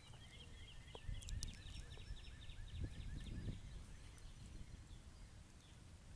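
A songbird singing a fast trill of short repeated notes that stops about four and a half seconds in, over wind buffeting the microphone.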